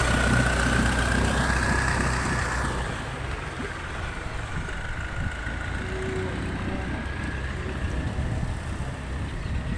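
Boat engine running steadily, with a low drone and a high whine; the drone drops in level about three seconds in.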